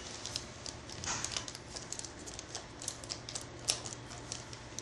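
Irregular light clicks and taps, several a second, as hands fit a magnetic hinge-masking cover over a door hinge, with one sharper click about three and a half seconds in.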